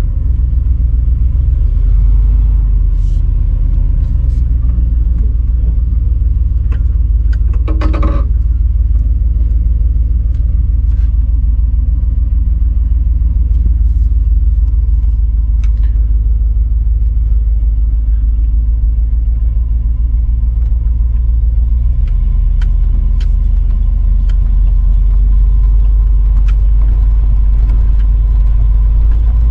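Chevy K3500's 454 big-block V8 running while the truck is driven, heard inside the cab as a steady low rumble. A brief sharp sound stands out about eight seconds in, and the engine note drops about three-quarters of the way in.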